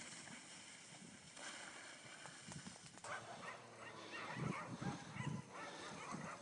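Sled dogs yipping and barking in short calls, mostly from about three seconds in.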